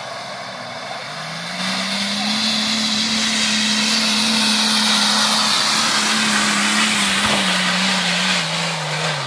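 Off-road 4x4 engine revving hard under load. Its note climbs about a second and a half in, holds high, then eases down near the end.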